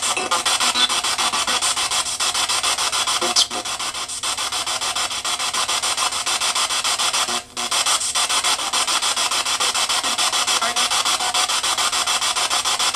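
Spirit box sweeping through radio stations: a steady hiss of static chopped into rapid, even pulses, with a brief drop-out about seven and a half seconds in.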